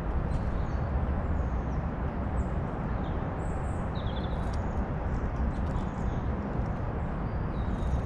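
Small songbirds chirping and calling in short scattered notes over a steady low rumble, which is the loudest sound throughout.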